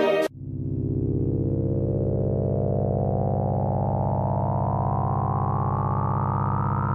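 Music cuts off just after the start. A sustained synthesizer drone follows, a stack of steady tones with a slight rapid pulse, its upper tones slowly rising in pitch.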